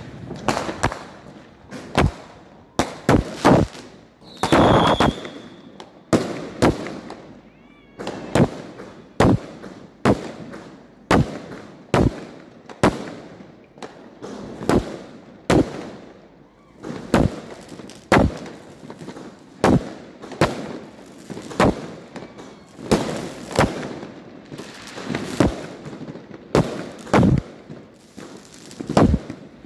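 Aerial fireworks going off: a steady run of sharp bangs, roughly one a second, each trailing off in a ringing echo. A short high whistle sounds about five seconds in.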